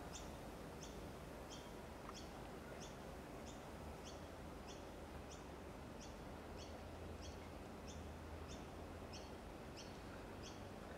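A small high chirp repeating evenly about twice a second, over faint room tone with a low hum.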